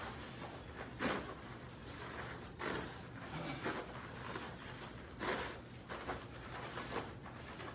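Bare feet stepping and landing on foam mats and karate uniforms swishing as two people kick and shuffle through a drill: about six short sharp bursts spread unevenly, over a faint steady low hum.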